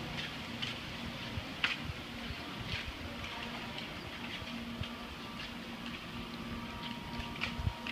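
Flip-flop footsteps slapping on a concrete walkway at an irregular walking pace, over a steady low hum.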